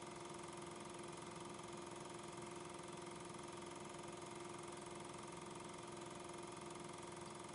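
Steady faint hum from the film transfer equipment, carrying one constant low tone and an even hiss, unchanged throughout; the regular 8mm footage itself has no soundtrack.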